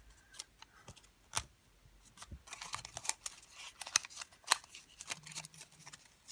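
Folded colour paper crinkling and crackling as fingers tuck one origami unit's flap into another's slot: a scatter of short, crisp rustles and clicks, the sharpest about a second and a half in and again around four seconds.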